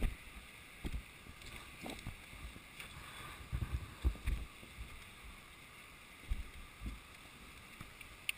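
Barefoot footsteps on river cobbles, a dull thump with each step, irregular at about one a second, over the steady rush of the river.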